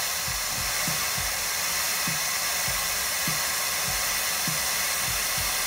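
Steady hiss of compressed air from the Versatran 15T Retriever's pneumatic ramp system as the rear loading ramp lowers under air pressure, with a few faint low knocks.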